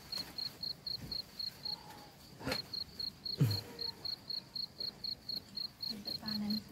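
A cricket chirping steadily in short high pulses, about four a second. A sharp click comes about two and a half seconds in, and a brief louder low sound a second later.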